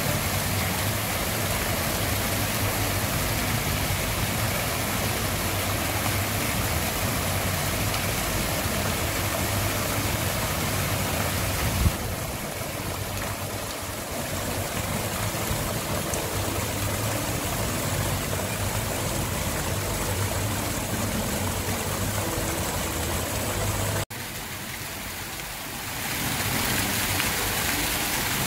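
Fountain jets splashing into a pool: a steady rushing, splashing water noise, with a low steady hum beneath it in stretches. The sound dips briefly twice, about twelve and twenty-four seconds in.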